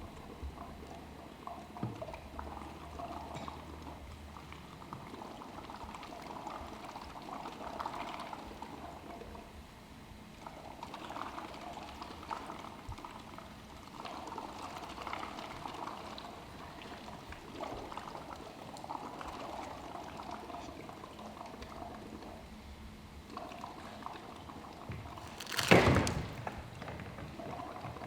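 Water being poured and sloshed in uneven spells, with one loud splash or thump near the end.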